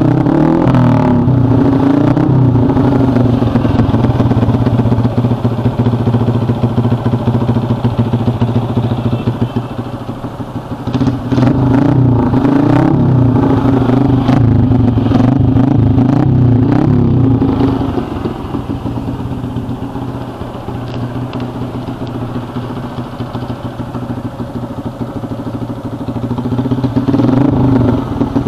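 RS 125 motorcycle engine breathing through a VMAX tube-type open-specs aftermarket muffler, being revved in repeated throttle blips between stretches of idling. The revs are loud through the first two-thirds, drop to a quieter idle in the latter part, and pick up again near the end.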